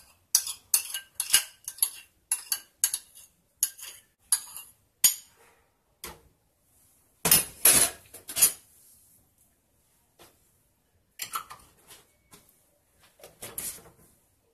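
Metal spoon scraping and tapping against a ceramic bowl, about a dozen quick strokes in the first five seconds. A louder clatter of dishes in a stainless steel sink comes about seven seconds in, and a few lighter knocks near the end.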